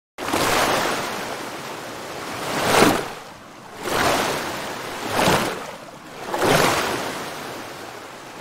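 Surf on a beach: waves washing in and breaking. The sound rises and falls in surges every one to two seconds, the strongest about three seconds in.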